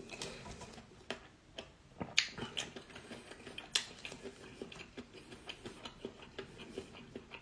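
Close-up eating of instant noodles: a run of small, irregular wet clicks and smacks from chewing, with a couple of sharper ones.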